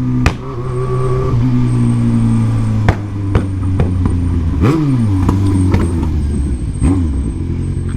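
Yamaha XJ6's four-cylinder engine running loud under way, a deep steady exhaust note whose revs dip and climb again around the middle. Four sharp cracks sound at intervals through it.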